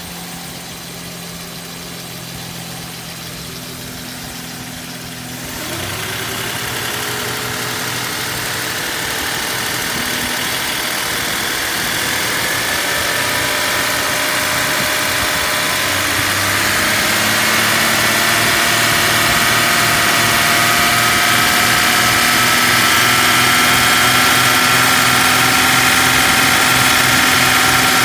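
1986 Mercedes 420SEL's 4.2-litre V8 running with the KE-Jetronic EHA (electro-hydraulic actuator) unplugged. It idles at first, rises to about 1,800 rpm some five seconds in, then climbs again about sixteen seconds in and holds near 3,000 rpm.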